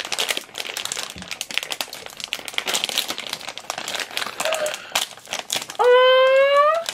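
Plastic blind-bag packets of Squish-Dee-Lish squishy toys crinkling and rustling as they are torn open and handled. Near the end a child's voice holds a loud high note that rises slightly.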